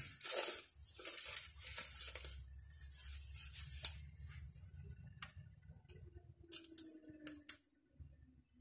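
Packaging rustling and tearing as a parcel is unwrapped, then a few separate sharp clicks and taps as the item is handled in the second half.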